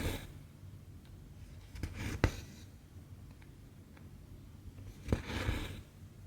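Needle and thread drawn through 14-count cross-stitch fabric: three short rasping pulls, near the start, about two seconds in and about five seconds in, with small sharp ticks of the needle, the sharpest just after two seconds.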